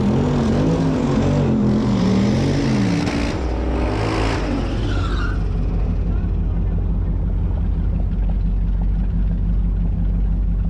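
The 2006 Chrysler 300C SRT8's 6.1-litre Hemi V8 revs up and down in repeated waves for about three seconds, then drops to a steady, low idle.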